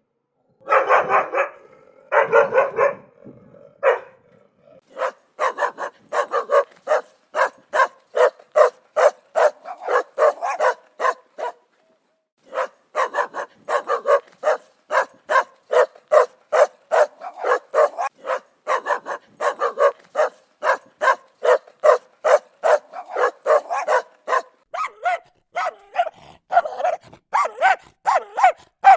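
Dog barking aggressively. A few longer barks open the run, then come rapid, steady barks at about two a second, with one brief pause about twelve seconds in.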